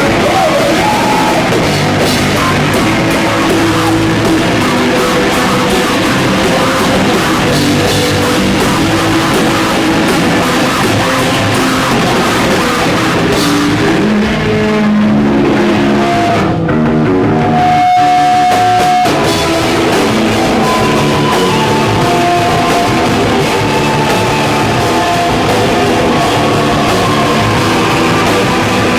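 Hardcore band playing loud with distorted guitar, bass and drums. About halfway the drums drop out for a few seconds, leaving held guitar notes, then the full band crashes back in.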